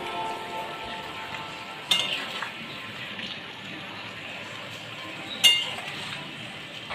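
Chicken curry sizzling in a pan, with two sharp metallic clinks of a utensil against the pan, one about two seconds in and one later on.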